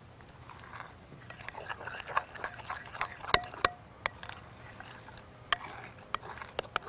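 A spoon stirring a thick mix of glue and shaving cream: soft squelching and scraping, with a few sharp clicks of the spoon against the container.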